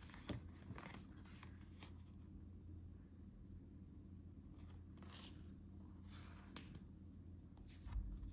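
Faint rustling and light clicks of card postcards being handled and flipped through, in a few short bursts with a small knock near the end. A steady low electrical hum runs underneath.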